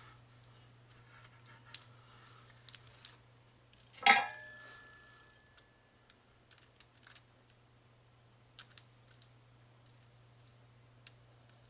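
Small clicks and taps of tools being handled while soldering a battery lead on a slot machine's circuit board, over a steady low hum. About four seconds in comes one sharp metallic clink that rings on as a single clear tone for a couple of seconds.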